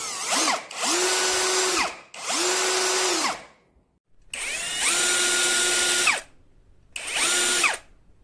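AKZWOXRO 21V cordless drill driver's motor run in five short bursts on the trigger, each winding up to a steady whine and winding down again when released.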